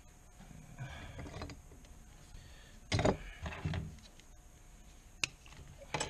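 Workbench handling noises: scraping, then a loud knock about three seconds in, a sharp click a little after five seconds and another knock near the end, as tools and the antler are moved and set down.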